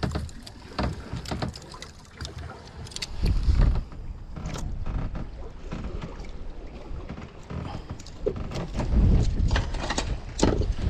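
Wind gusting on the microphone aboard a small boat at sea, with scattered clicks and knocks of fishing tackle being handled. The heaviest gusts come a few seconds in and again near the end.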